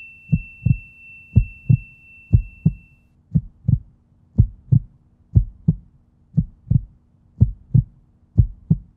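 Heartbeat sound: paired lub-dub thumps, about one pair a second. A high bell-like ring fades out over the first three seconds.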